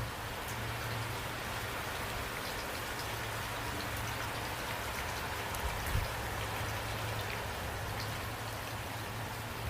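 Steady rain falling, with many individual drops pattering on a surface over a low, steady rumble. A couple of soft thumps come about six seconds in.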